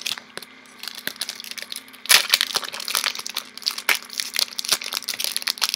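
Foil booster-pack wrapper crinkling and crackling as it is handled and torn open. It starts with a few scattered crackles, then turns into a dense, continuous crackle about two seconds in.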